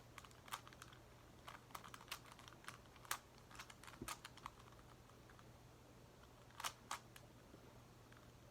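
Plastic clicking of a Megaminx puzzle's faces being turned by hand: a quick, irregular run of small clicks over the first half, then two louder clacks about two-thirds in.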